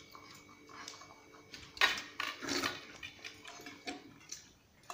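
Close eating sounds: irregular clicks and wet smacks of a hand mixing rice and curry on a steel plate and of chewing, loudest a little under halfway through.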